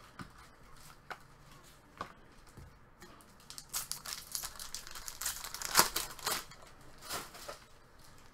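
The foil wrapper of a 2016-17 Fleer Showcase hockey card pack being torn open and crinkled. A few light rustles and clicks come first, then a dense run of crackling from about three seconds in until near the end, loudest about six seconds in.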